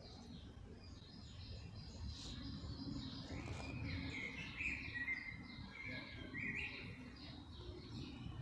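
Songbirds chirping and singing, with many short calls and a few quick rising notes through the middle, over a low continuous rumble.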